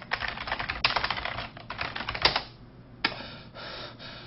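Computer keyboard typing: rapid runs of key clicks, pausing briefly and resuming a little after two seconds.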